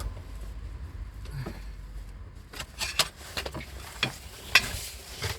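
Metal clinks and knocks from a heavy car flywheel being handled and fitted, a scatter of short sharp hits, the loudest about four and a half seconds in.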